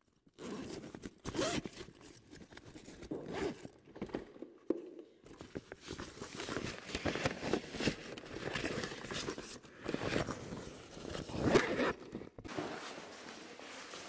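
Handling noise of cloth rubbing and scraping over a camera's microphone as the camera is moved about under fabric and grabbed by hand, with many irregular clicks and knocks.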